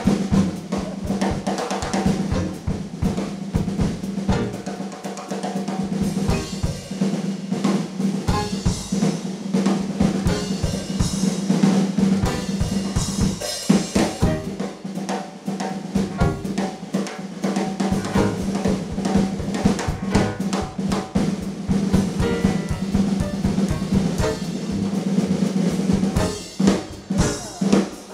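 Drum kit taking a solo break in a Dixieland jazz number: busy snare work with rolls and rimshots, and bass drum strokes, with a steady low tone beneath it.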